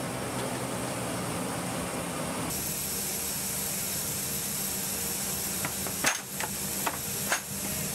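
Steady machinery hum and hiss in a C-17's cargo bay, with a few sharp metallic clanks in the second half, the loudest two about a second apart, from the cargo-floor rollers and locks.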